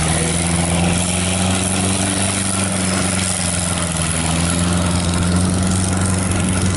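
Engine of a tracked rice-hauling carrier running at a steady pitch as the machine crawls through deep paddy mud.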